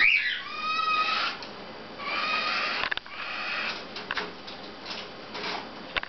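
Cockatiels calling: several drawn-out, steady calls of about a second each in the first half, typical of chicks begging to be fed. Short clicks and scratches follow in the second half.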